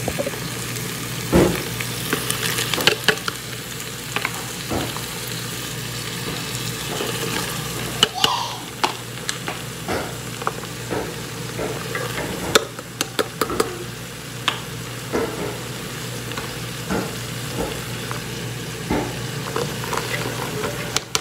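Ground beef sizzling in a pot while chopped vegetables are tipped in from bowls. Many short clicks and knocks of pieces and bowls against the pot run through the sizzle.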